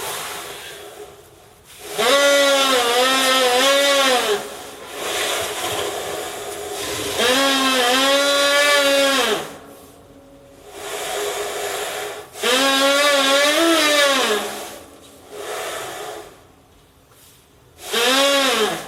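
An Asian elephant blows air through a small gap, making long pitched tones that waver slightly: three notes of about two seconds each and a short one near the end. Breathy hissing blows come between the notes.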